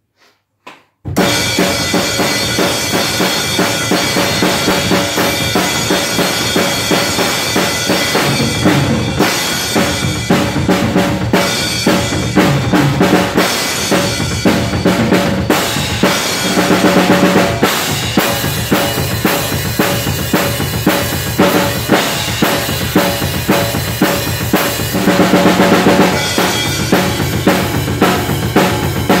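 Acoustic drum kit played with sticks: a steady groove of bass drum, snare and crash cymbals that starts about a second in, with busier fills about halfway through and again near the end.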